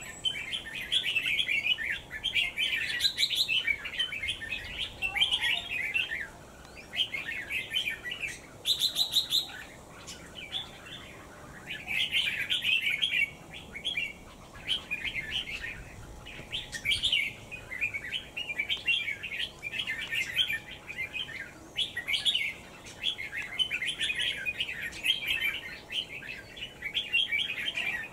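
Small birds chirping in rapid high-pitched bursts of chatter, one burst after another with short pauses.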